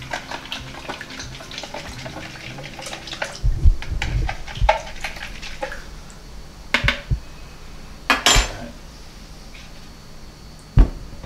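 A spoon clinking and scraping in a plastic mixing bowl of salt water, with several louder knocks as the bowl is handled at the sink and one sharp knock near the end.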